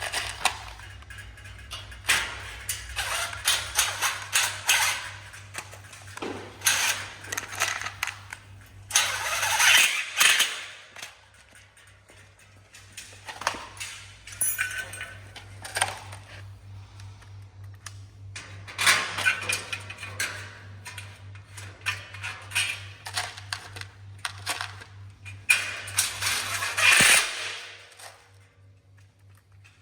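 Clicks, knocks and rustling from greenhouse frame parts and fasteners being handled and fitted together during assembly, with a few louder scraping bursts over a low steady hum.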